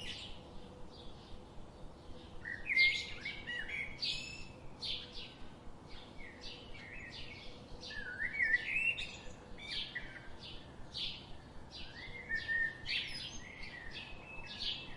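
Bird chirping in short, repeated phrases of quick gliding notes, one phrase every few seconds, with scattered single chirps between.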